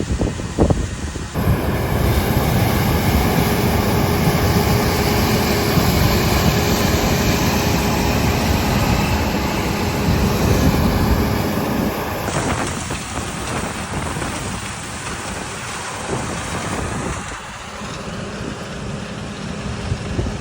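Heavy harvest machinery running steadily with a loud mechanical rumble and hum. The sound changes abruptly about a second in and again past the middle.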